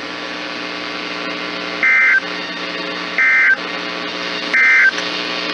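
Three short Emergency Alert System (SAME) end-of-message data bursts, about a second apart, each a fraction of a second of buzzing two-tone digital data, signalling the end of the severe thunderstorm warning. A steady hum runs underneath.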